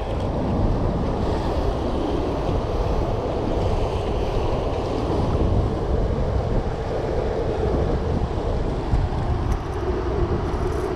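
Steady rush of churning water in a dam's tailrace, from the generators releasing water through the dam.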